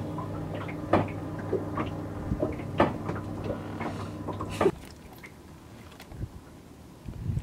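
Scattered small clicks and knocks of fishing line and tackle being handled against a boat's side, over a steady low hum that stops about four and a half seconds in; after that it is quieter, with a few soft thumps.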